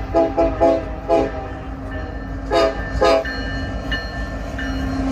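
Nathan K5LLA five-chime air horn on a BNSF locomotive sounding a rapid string of short blasts, five in the first second and a half, then two more about 2.5 and 3 seconds in, over the rumble of the passing train.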